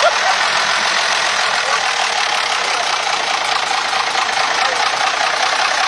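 Old FNM truck's diesel engine running steadily, heard from inside the cab.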